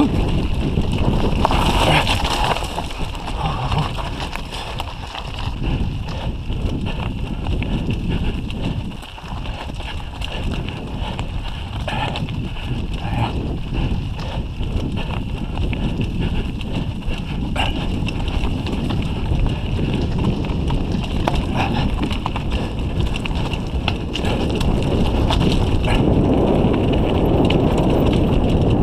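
Mountain bike clattering down a loose rocky trail: tyres crunching over stones and the bike rattling, with frequent sharp knocks, over a steady wind rumble on the bike-mounted camera's microphone. It gets louder near the end.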